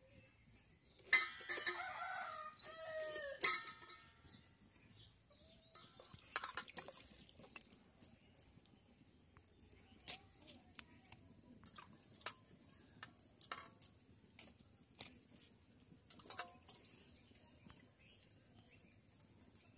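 A rooster crows once, about a second in, one long call of over two seconds that is the loudest sound. After it come scattered light clicks and taps of a knife cutting and handling star fruit.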